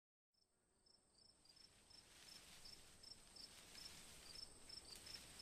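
Very faint fireplace crackling, fading in just after the start, with a regular high chirping about two to three times a second running through it.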